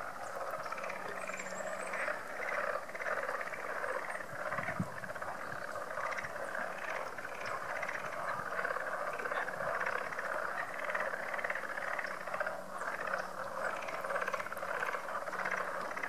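A dense chorus of many small frogs calling over one another in a steady, pulsing din, a sound that can pass for a flock of sandhill cranes or for something mechanical.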